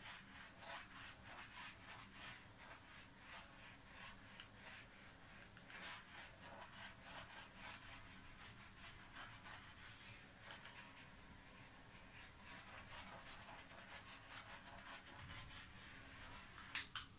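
Faint, irregular soft ticking and rustling as a small handheld torch is passed over wet acrylic paint on a canvas, with one sharp click near the end.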